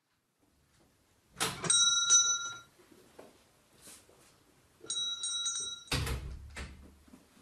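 A small bell hung on a shop door rings in a few quick strokes as the door is pushed open with a knock. A few seconds later it rings again and the door shuts with a heavy thump.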